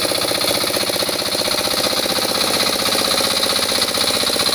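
Hand tractor's engine running steadily with a rapid, even chugging beat while the tractor hauls its cage wheels and harrow through paddy mud.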